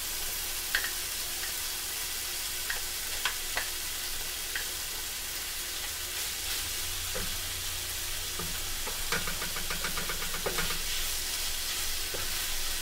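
Vegetables and chicken sizzling steadily in a frying pan, stirred with a wooden spatula that clicks and scrapes against the pan now and then, with a quick run of clicks about nine seconds in.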